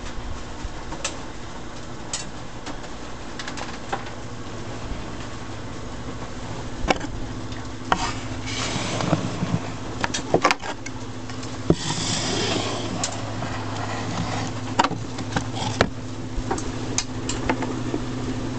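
Motor-driven rotating drum screener for worm castings running with a steady hum, under scattered clicks and knocks. There are two short rushes of rustling and scraping, about eight and twelve seconds in, as compost is pushed down the chute into the turning drum.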